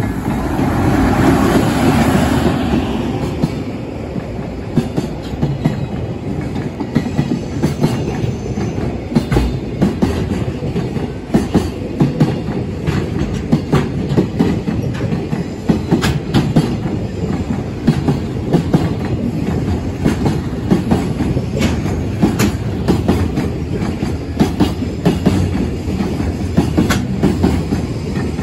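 Electric-hauled JR Freight container train rolling past, with a steady rumble of wagon wheels and rapid clicks over rail joints. It is loudest in the first few seconds.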